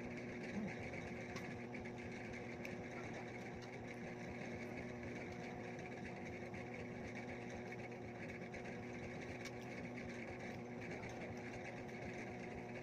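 Steady, even motor hum with a few faint clicks over it.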